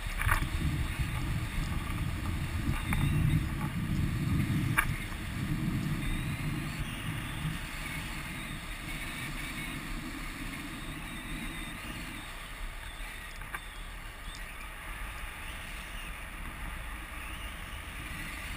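Wind rushing over the camera microphone in paraglider flight, a gusty low rumble that is loudest for the first twelve seconds or so and then settles into a steadier, quieter rush. A few light clicks come in the first five seconds.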